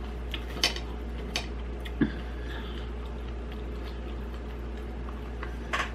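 Quiet eating sounds: a few short clicks and smacks from chewing and picking food off a plate, over a steady low hum.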